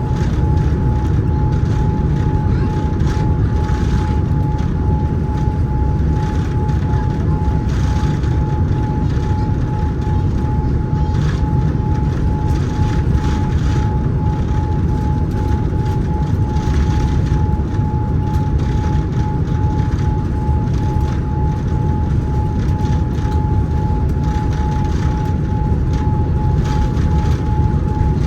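Steady low rumble of a Boeing 787-9 heard inside the passenger cabin, with a constant high whine running through it and no sudden changes.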